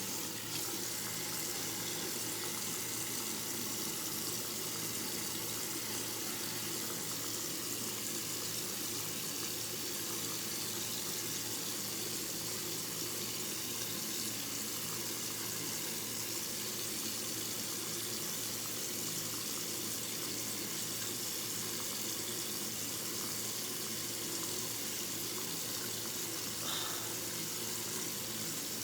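Steady rush of running water from a tap or shower, unbroken, with a brief faint knock near the end.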